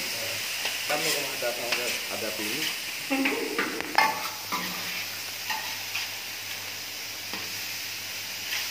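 Shredded vegetables sizzling and frying on a hot flat-top griddle as they are tossed and stirred. A steady hiss is broken by a few short knocks, the sharpest about four seconds in.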